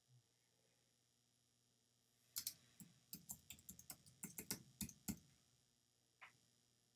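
Computer keyboard typing: a quick, uneven run of key clicks lasting about three seconds, starting a couple of seconds in, followed by a single click a second later.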